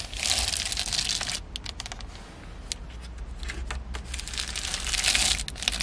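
A hand rubbing over dry plastic vapour-barrier sheeting on a van ceiling, the plastic crinkling in two spells, at the start and again near the end, with a few light clicks between.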